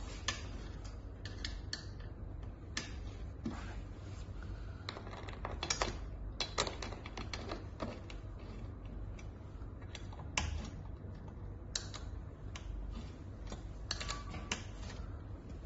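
Irregular light clicks and taps from parts and tools being handled while assembling a metal-frame chair, over a steady low hum.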